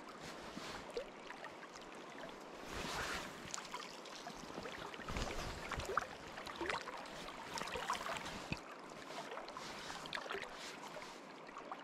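River water lapping and splashing close by, with many small clicks and ticks and a few low thumps from handling the rod and gear.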